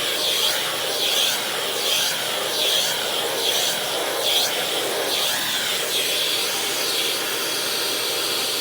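Vacuum cleaner running steadily, its pitch swelling and dropping about once a second as the nozzle is drawn in strokes over a cat's fur, then holding steady for the last second or so.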